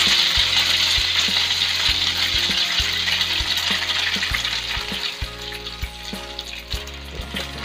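Egg-coated skewered tapioca dough (cilor) frying in hot oil in a wok: a steady, hissing sizzle that gradually dies down over the seconds.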